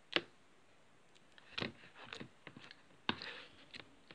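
Slime being squeezed and poked by hand in a plastic tub, giving irregular sharp sticky clicks and pops.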